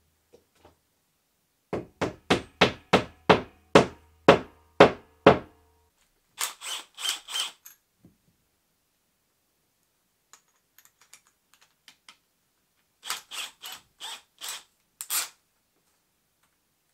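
Hammer tapping nails into wooden trim: a run of about nine solid blows, roughly two a second, then a group of four sharper taps, a few faint ticks, and a last group of five sharp taps.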